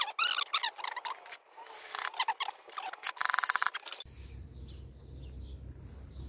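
18-volt cordless drill driving screws into wooden frame boards in short bursts, with a quick run of rapid clicks a little over three seconds in. After about four seconds the sound cuts abruptly to a faint, steady low hum.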